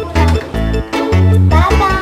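Background music with a steady beat and a repeating bass line; a sliding melody comes in about one and a half seconds in.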